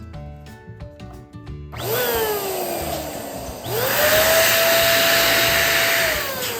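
Electric balloon pump running in two bursts, inflating a balloon. The motor's pitch falls during the first burst; the second spins up to a steady whine and winds down near the end.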